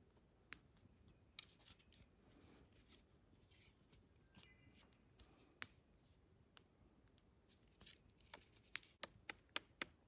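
Faint clicks and light scrapes of hands working a split maple-branch tongs with a cord wrapping, with a quick run of sharper clicks about 8.5 seconds in.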